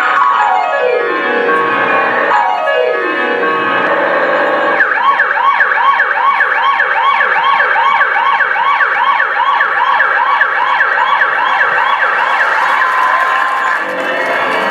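Siren-like electronic sound effect from a recorded backing track: long falling pitch sweeps for the first few seconds, then a fast wail that rises and falls about three times a second, ending in a rising sweep.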